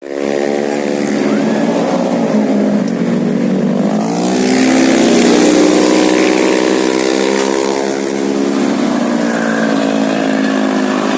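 A tour bus's engine running and pulling away. Its pitch dips, then climbs about four seconds in, as road and wind noise grows.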